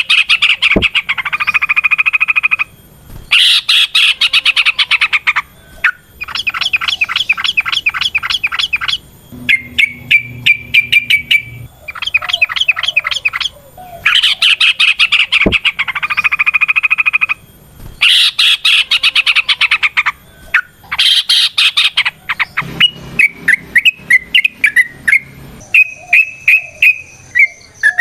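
Yellow-vented bulbuls giving loud, rapid chattering song in repeated bursts of two to three seconds with short pauses between. This is the long, fast 'ropel' song that bird keepers call gacor, meaning a bird in full song.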